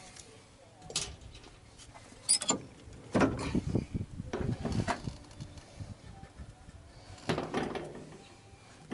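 Scattered metallic clinks, knocks and scrapes of hand tools and suspension hardware being handled while a front lower control arm is fitted: several separate short sounds a second or so apart, with a longer scraping stretch in the middle.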